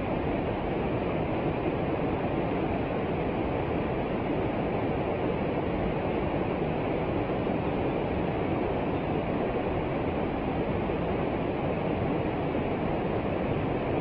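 Mountain stream rushing down a small cascade between boulders: a steady, even rush of white water.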